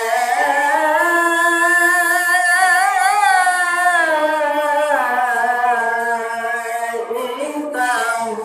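A single voice chanting Quranic recitation in a melodic style, holding long drawn-out notes, with a wavering ornament about three seconds in and shifts of pitch near the middle and end.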